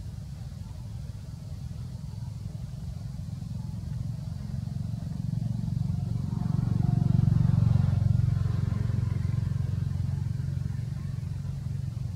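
Low engine rumble of a passing motor vehicle, swelling to its loudest about seven or eight seconds in and then fading.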